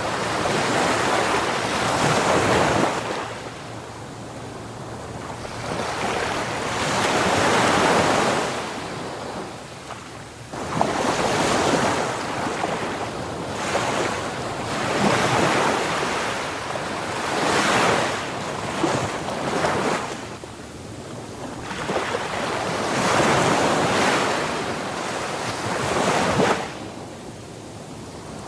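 Ocean surf on a beach: waves breaking and washing up, then drawing back, the hiss swelling and fading every few seconds.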